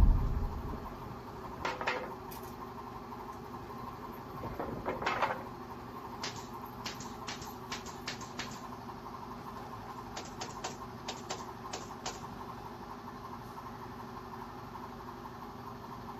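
A steady low hum with light clicks and knocks: two soft knocks about two seconds in, a brief rustling swell around five seconds, then two runs of quick light clicks in the middle.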